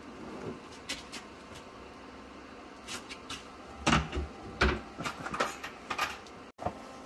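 Knocks and clanks of exhaust pipe being pushed and set into place under a car: a few light clicks, two louder thumps about four seconds in, then a quick run of knocks.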